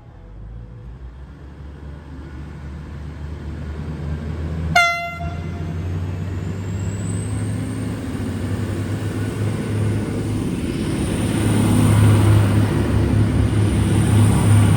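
V/Line VLocity diesel multiple unit running, its low engine rumble growing steadily louder, with a high whine that rises and then holds. A single short toot of the train horn sounds about five seconds in, the loudest moment.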